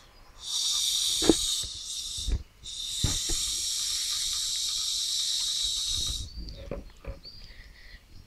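Hydrogen gas hissing out of a gas-cylinder valve into a rubber balloon as it is filled. There is a short burst about half a second in, then a longer steady hiss of about three seconds, then faint handling noises.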